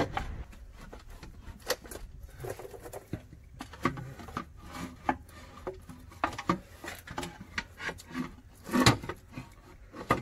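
Irregular taps, knocks and scrapes of a metal oil pan being handled and offered up into place under a BMW E30, with a louder knock about nine seconds in.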